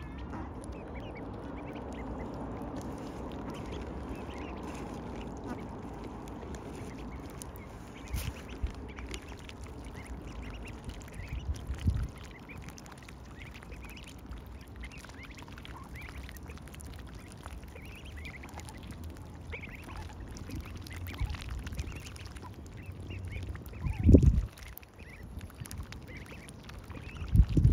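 A group of three-to-four-week-old mallard ducklings squeaking and peeping with excitement while feeding on grass and seed in the water, with a few low thumps, the loudest about 24 seconds in.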